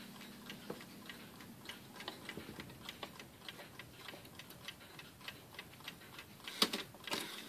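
G.H.S. cuckoo clock's pinned movement ticking, about three soft ticks a second, while its minute hand is turned by hand. Near the end come a few louder mechanical clicks as the cuckoo door starts to open.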